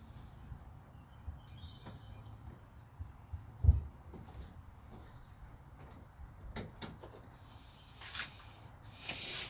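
Tools and parts being handled during work on a car: scattered light clicks and clinks, one dull thump a little over a third of the way in, and a scraping sound near the end.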